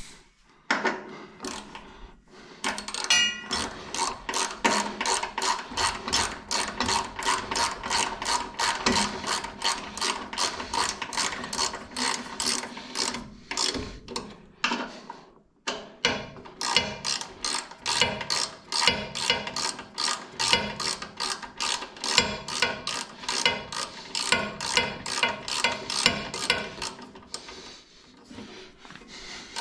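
Socket ratchet wrench with an Allen (hex) socket clicking steadily as it turns a fastener, two to three clicks a second, pausing briefly about halfway through before carrying on.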